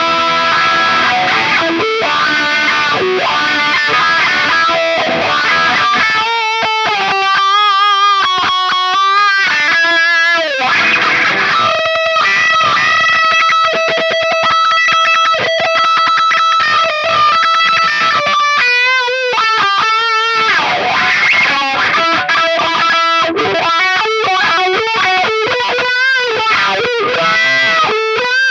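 Distorted electric guitar played through a Dunlop GCB95 Cry Baby wah pedal: a lead line with wavering held notes and a long sustained note in the middle.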